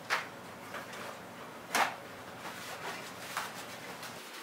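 Three short, light knocks and clicks from handling things around a kitchen sink after hand-washing, the loudest a little under two seconds in, over faint room sound.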